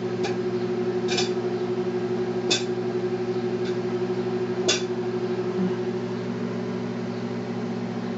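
Microwave oven running with a steady hum while popcorn kernels pop inside it: about five sharp pops spread over the first five seconds.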